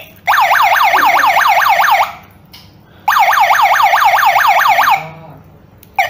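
Built-in siren of a KERUI KR-X1 wireless alarm control panel sounding: two bursts of a fast warbling whoop, each almost two seconds long, about a second apart.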